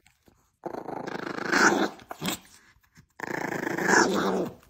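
Small dog growling in two long, rough bouts, the second starting about three seconds in: a grumpy warning growl from a dog that is ready to nip.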